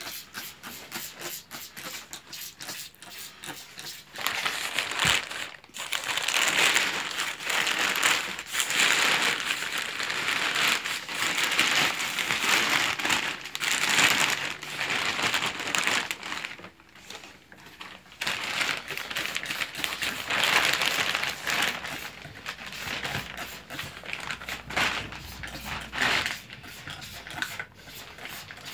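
Black plastic garbage bag rustling and crinkling in irregular bursts as it is pulled up and gathered around a log, briefly quieter a little past halfway.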